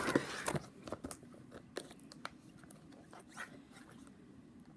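Plastic-wrapped craft packages being handled and moved: a short burst of crinkling and rustling at the start, then scattered light clicks and rustles.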